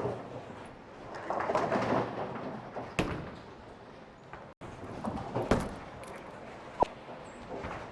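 Bowling alley clatter: a stretch of rattling noise about a second in, then several sharp knocks, as from balls and pins.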